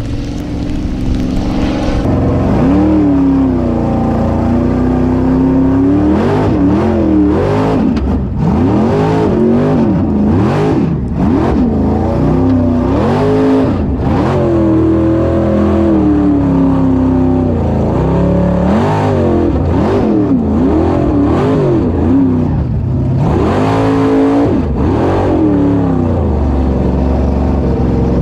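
Formula Offroad hill-climb buggy's engine revving hard, its pitch rising and falling over and over, heard from inside the cockpit.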